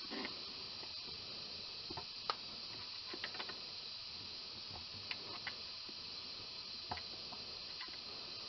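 Scattered light clicks and taps of a screwdriver tip prying at a T45E automatic transmission's filter neck to work the filter loose from its pickup seal, over a steady hiss.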